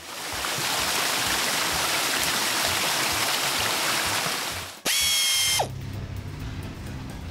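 Cartoon water-spray sound effect: a steady hiss of the washing jets for nearly five seconds, cut off by a short whistle-like tone, with low background music after.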